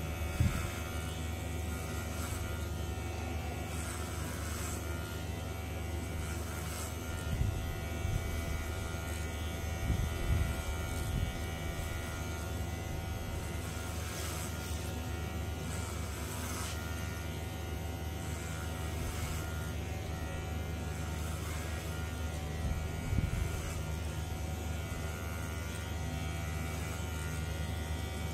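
Cordless electric hair clipper buzzing steadily as it cuts hair, with a few brief thumps.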